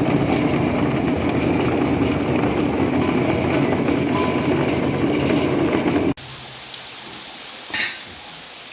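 Shallot washing and peeling machine running with a steady mechanical drone and some rattling. It cuts off abruptly about six seconds in, leaving quieter background with one short noise near the end.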